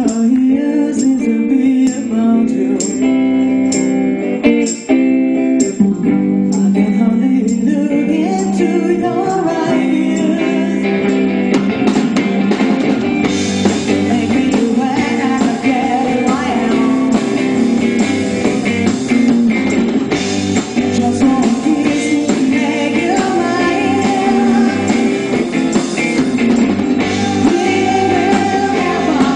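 A live rock band playing: electric guitars and a drum kit, with a lead vocal over them. The sound grows fuller and brighter, with more cymbal, a little before halfway through.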